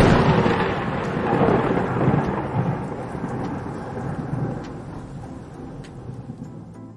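Thunderstorm: a sudden crack of thunder that rolls on as a long rumble, fading steadily over several seconds, with rain falling.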